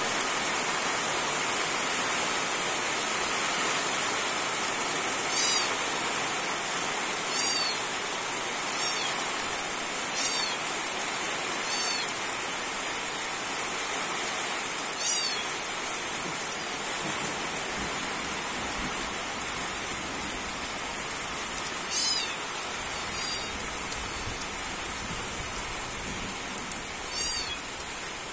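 Steady rain falling, an even hiss throughout. Over it, short high-pitched calls sound now and then, about ten times, at irregular intervals.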